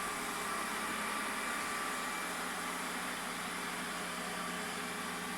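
Deebot 900 robot vacuum running: a steady whirring hiss with a thin, steady high whine.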